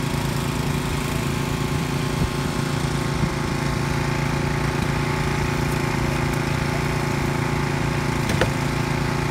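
Small engine of a hydraulic rescue-tool power unit running steadily at an even pitch, driving the hydraulic jaws used to free a trapped person from a wrecked car. A single sharp click about eight seconds in.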